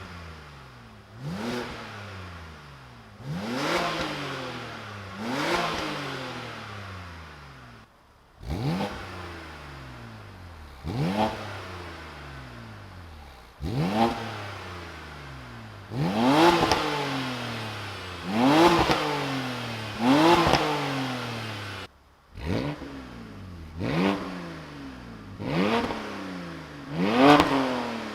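BMW Z4's 3.0-litre N52 straight-six revved again and again through its exhaust. Each rev climbs sharply and falls back slowly toward idle. The revs come in sets of three or four that cut off abruptly, and the later sets are louder, as the stock, straight-piped back box and resonator-delete exhausts are heard in turn.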